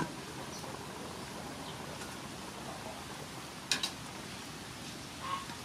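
A large aluminium pot of soup boiling with a steady hiss of bubbling; a couple of sharp metal clinks of a ladle against the pot come a little past the middle.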